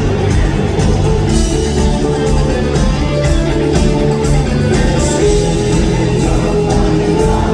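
Live rock band playing loud through a concert hall's PA, with guitars over a steady drum beat and cymbal strokes.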